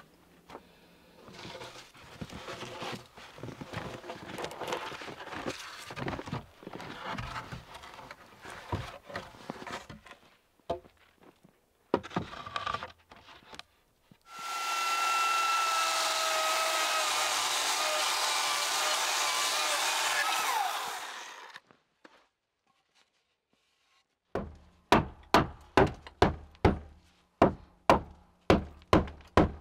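Wooden boards knocked and rubbed as they are handled and fitted, then a power tool runs steadily with a whine for about seven seconds and winds down. Near the end comes a run of evenly spaced hammer blows on wood, about two a second.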